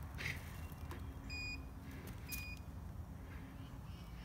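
Self-balancing hoverboard giving two short high beeps about a second apart as a rider steps onto it, with a low steady hum underneath.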